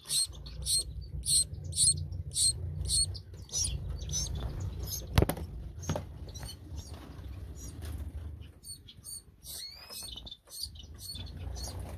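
Small captive finches chirping in quick, high peeps, about three a second at first, then sparser, over a low rumble. There is a sharp click about five seconds in.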